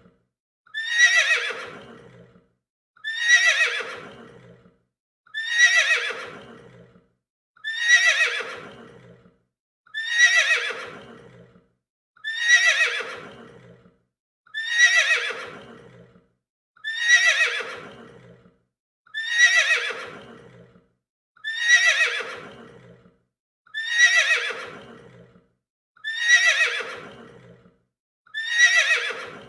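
A horse neighing: the same whinny repeated about fourteen times, one every two seconds or so. Each call starts high and slides down in pitch, then fades out.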